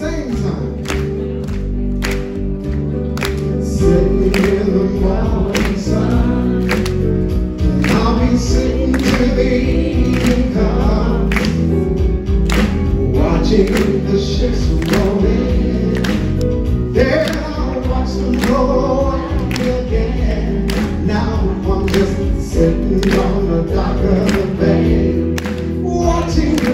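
A man singing live into a microphone over an amplified band with a steady drum beat; the music gets louder about four seconds in.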